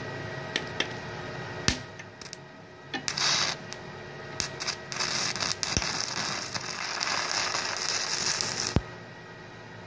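Stick-welding arc from an LB electrode at 70 amps on an inverter welder. The rod taps against the steel plate a few times, then strikes a short arc about 3 seconds in. From about 5 seconds a steady crackling, hissing arc burns until it cuts off suddenly near the end.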